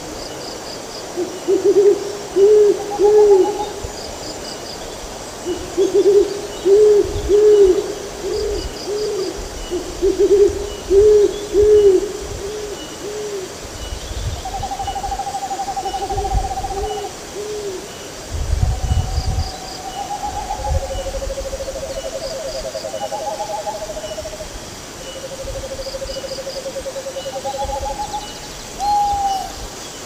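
Owls hooting: short hoots in quick groups of three or four through the first half, then longer, higher, quavering notes, some overlapping, in the second half.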